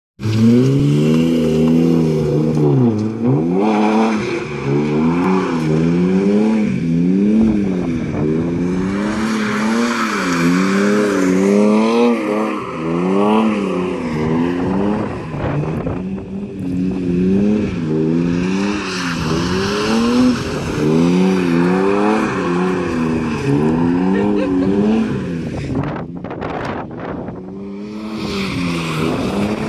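BMW E36 320i's two-litre straight-six engine revving up and down over and over, about once a second, as the throttle is worked to hold the car in a drift on wet asphalt.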